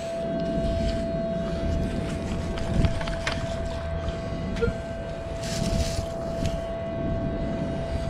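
Sand being shaken and sifted through a perforated beach sand scoop: a rushing rumble with scattered clicks, and a burst of hiss a little past halfway. A steady high metal-detector tone sounds throughout, with one short beep near the middle.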